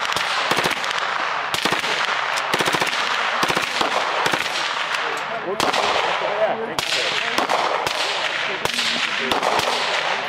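Gunfire from an AR-15-style carbine and other guns, with shots coming thick and fast throughout: some single, some in rapid strings like automatic fire.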